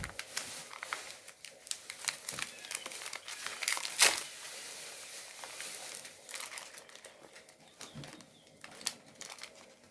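Crinkling and rustling handling noise, many small crackles with a louder one about four seconds in.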